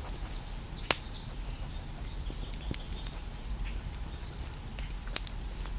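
Small campfire crackling, with a few sharp pops (the loudest about a second in and again near the end), over a low steady outdoor rumble and faint bird chirps.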